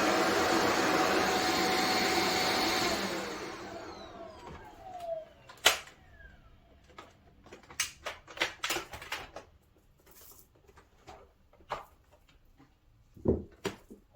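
Shark Stratos XL corded upright vacuum cleaner running, then switched off about three seconds in, its motor winding down with a falling whine. A sharp click follows, then scattered clicks and knocks of the machine being handled.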